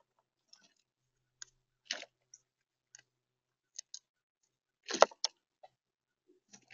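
Scattered sharp clicks and cracks of a gray squirrel digging through acorns in a plastic tub and then gnawing a nut held at its mouth. The loudest crack comes about five seconds in.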